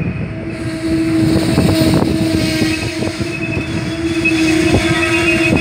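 MARC bilevel commuter coaches rolling past close by, the wheels clicking over rail joints. A steady whine runs underneath, and thin high-pitched wheel squeals come in near the end.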